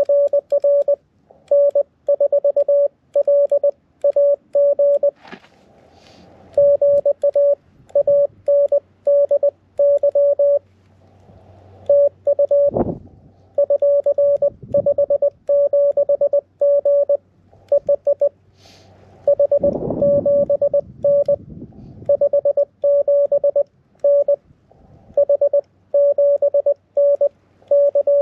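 Morse code (CW) from a QRP ham radio transceiver on the 10-meter band: a single steady tone near 600 Hz keyed on and off in dots and dashes, with short pauses between groups. A couple of brief rustling noises come in partway through.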